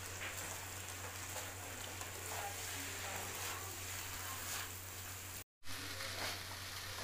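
Fried rice with vegetables sizzling in a hot pan as it is tossed with a spatula: a steady frying hiss with a few faint scrapes and stirring strokes. The sound drops out for a moment about five and a half seconds in.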